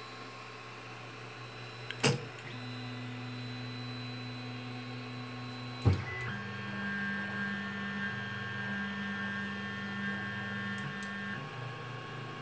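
Creality Ender 3 3D printer auto-homing: its stepper motors whine steadily as the axes drive to their home positions in two separate moves, with a sharp click about two seconds in and another about six seconds in. The printer's fans hum underneath.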